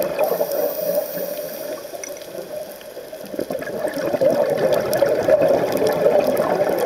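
Scuba exhaust bubbles rushing and bubbling past an underwater camera. The bubbling eases for a second or so partway through, then comes back as strong as before.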